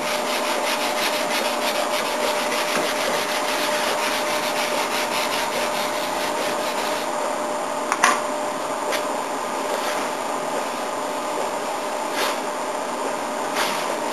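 Sanding on a 1966 Volkswagen Beetle's body panel: a fast, even, scratchy scrubbing that smooths out about halfway through. A sharp click follows, then a few light taps, while a fan hums steadily underneath.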